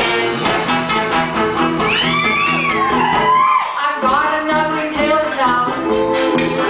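Live band music with piano accordion, electric guitar and drums, joined from about two seconds in by a high voice sliding up and down in pitch.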